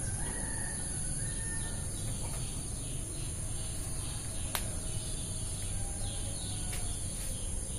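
Outdoor yard ambience: a steady low background noise with faint bird chirps and a constant high insect drone. There is a single click a little past halfway.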